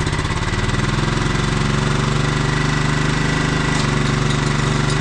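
Riding lawn mower's small engine running steadily with a fast, even pulsing beat, its pitch settling about half a second in.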